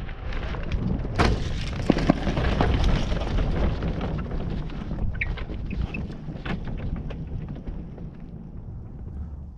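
Wind buffeting the microphone on a landing hang glider, a heavy rumble that slowly fades, with a few sharp knocks about one to two seconds in as the pilot touches down on foot on dry ground.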